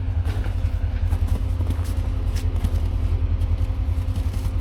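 Side-by-side UTV engine idling steadily, a constant low hum with no revving.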